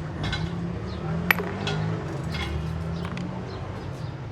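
Metal parts and tools clinking, with one sharp metallic clink about a second in and a few lighter ticks, over a steady low hum.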